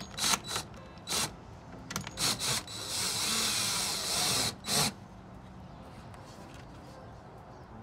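Cordless drill turning a slot bar's threaded rod to tighten a glue pull on an aluminum body panel: a few short trigger bursts, then a run of about two seconds, then one more short burst.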